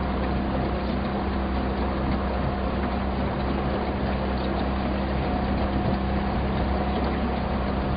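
Motorboat engine running steadily at an even speed, with a low, constant hum under the noise of the motor and water.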